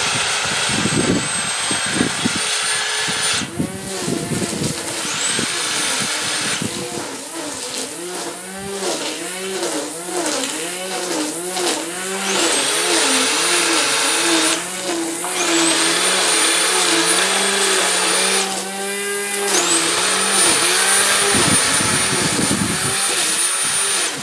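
Corded electric grass trimmer running in bursts: its motor whine spins up to a steady high pitch, cuts out, and starts up again about four times.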